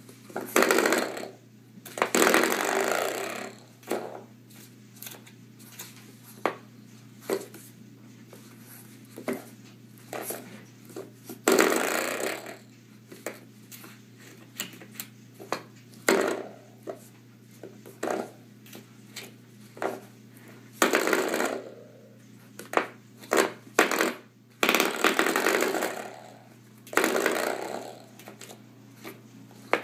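Spring door stop twanging again and again as a puppy paws and bites it: many short sharp clicks and several longer buzzing boings of about a second each. A steady low hum runs underneath.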